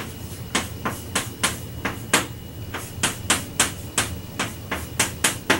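Chalk tapping against a blackboard as an equation is written: a run of sharp, irregular taps, about three a second.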